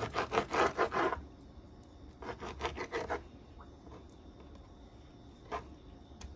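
Knife sawing through raw beef liver on a cutting board in quick back-and-forth strokes: one run of strokes in the first second, another about two to three seconds in, then a single stroke near the end.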